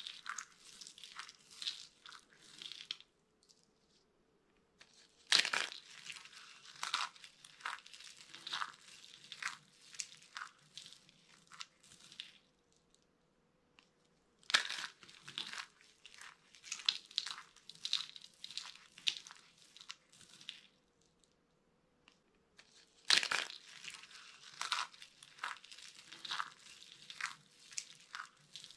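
Dry soap shapes (mini soap baskets) being crushed, giving crisp crackling and crunching in four bouts, each opening with a sharp crack and then fizzling out into smaller crackles, with short pauses between.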